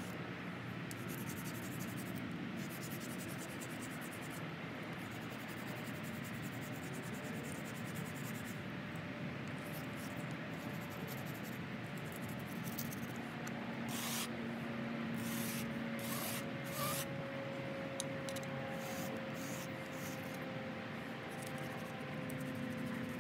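A small wooden knife rubbed back and forth on concrete, a soft gritty scraping as the rough pavement grinds its edge smoother. A few sharper scrapes come a little past the middle, and a faint low hum runs beneath from about halfway.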